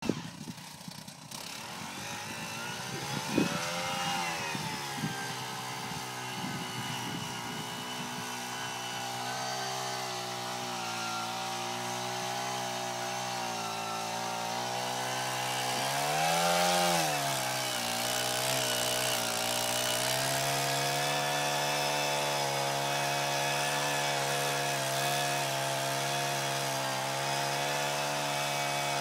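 Small engine of a one-man gas post-hole auger running as the bit drills into soil. Its pitch swells and sags about four seconds in and again around the middle, then holds steady. A few knocks come near the start.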